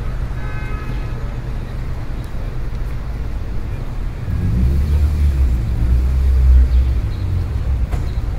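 City street traffic: a steady low rumble from road vehicles, with a brief high whine in the first second. About halfway through a passing vehicle's rumble swells louder for a few seconds, then eases.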